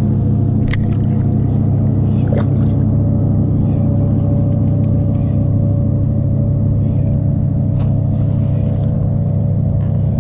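A steady, loud low drone with several even pitched tones, like a motor running, and a few faint short clicks over it.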